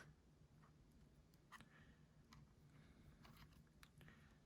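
Near silence, with a few faint, scattered clicks of a prying tool working at a phone's screen edge.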